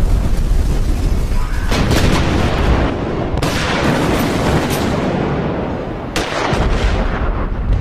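Loud, dense film-soundtrack collage: rumbling blasts and booms with music underneath. It cuts abruptly from one texture to another a few times.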